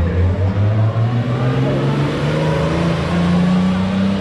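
Vintage racing car's engine accelerating hard up the hill, its pitch rising steadily throughout.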